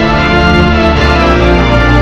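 Loud background music with sustained organ-like chords over a heavy bass.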